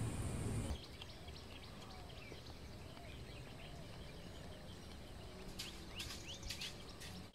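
Quiet rural outdoor ambience with birds chirping and twittering over and over. A few sharp clicks or taps come about six seconds in.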